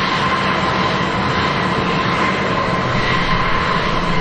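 Airbus A320 jet engines at taxi idle: a steady rushing hum with a faint whine held on a few tones.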